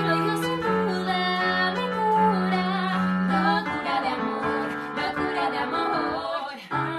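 Music with a female voice singing sustained notes with vibrato over a held bass and keyboard accompaniment.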